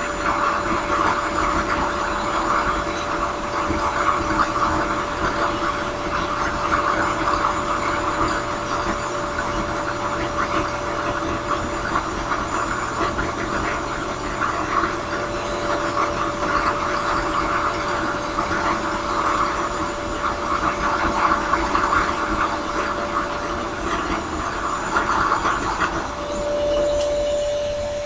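Drill press spinning a sanding drum while a briar pipe bowl is shaped against it: a steady motor hum under a rasping sanding noise that swells and fades. The sanding noise drops away about two seconds before the end, leaving only the hum.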